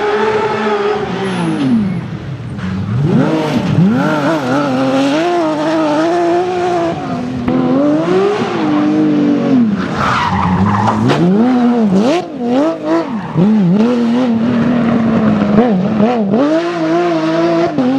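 Porsche 911 GT3's naturally aspirated flat-six engine being driven hard, its pitch climbing and dropping again and again through gear changes and throttle lifts.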